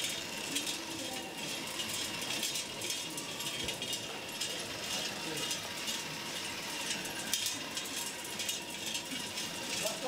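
Background chatter of many voices, mixed with a steady scatter of small clicks and rattles.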